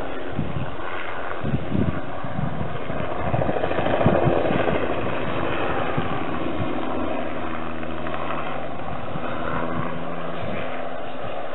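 Crop-spraying helicopter flying low overhead, its engine and rotor running in a steady drone that swells to its loudest about four seconds in as it turns close by.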